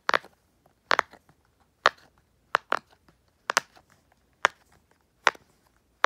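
Blue round silicone pop-it fidget toy having its bubbles pushed through one by one on its loud side: sharp, loud pops about once a second, now and then two close together.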